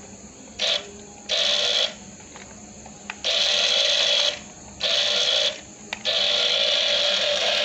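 Toy RC car's small electric drive motor whirring in short bursts as the throttle is pulsed on and off, then running steadily from about six seconds in.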